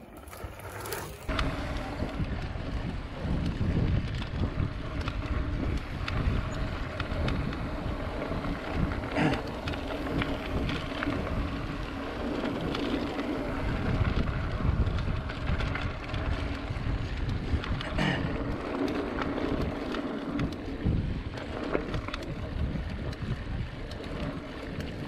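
Mountain bike rolling along a dirt trail: wind buffeting the rider's camera microphone over tyre rumble and a steady hum, with a few sharp knocks and rattles from the bike on rough ground.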